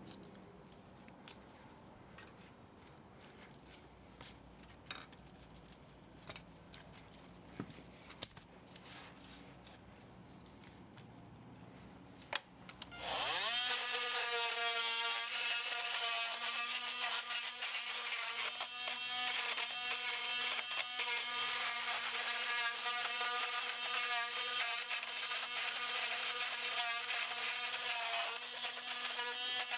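Faint clicks and taps of hand work for about the first half, then an electric power tool starts up about 13 seconds in, its whine rising in pitch as it spins up and then running steadily.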